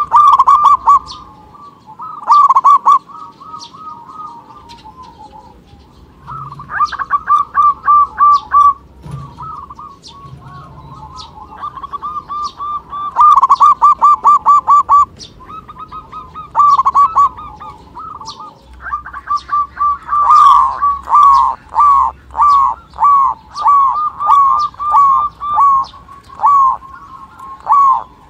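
Zebra doves (perkutut) cooing in bouts of quick, repeated notes. The second half holds a long run of evenly spaced notes, about two a second. Faint higher chirps sound between the bouts.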